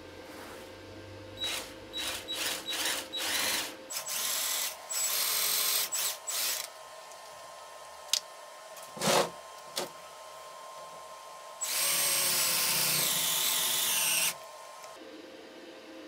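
Cordless drill running in a string of short trigger bursts, then in longer runs, as a bit bores into the top of a car battery. A few sharp knocks come about halfway through, then one steady run of about two and a half seconds.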